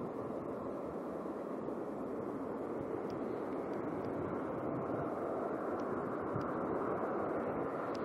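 Boeing 737-800's CFM56 jet engines, a steady rushing jet noise growing slowly louder as the airliner comes in to land.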